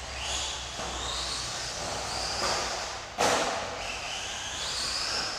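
Electric 1/10 two-wheel-drive RC buggy's motor whining high, rising and falling in pitch as it accelerates and slows around the track, with one hard thud about three seconds in.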